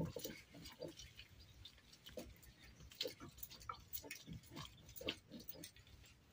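Faint, irregular scraping and light knocks of hand food preparation: a round grinding stone rubbed back and forth on a flat stone slab, and a fish being cut against a boti blade.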